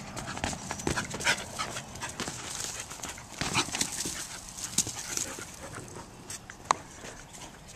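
A dog panting at play, with many quick scuffs and scrabbles on loose, gravelly dirt, busiest in the first five seconds. There is a single sharp click near the end.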